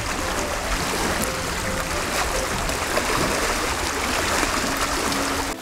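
Seawater washing and lapping against breakwater rocks: a steady watery hiss with a low rumble underneath.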